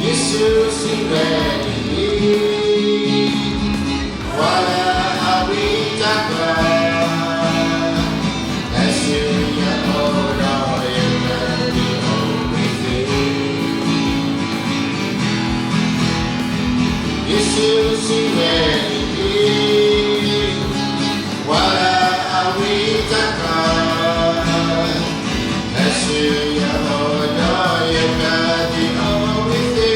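A worship song: singing over strummed acoustic guitar.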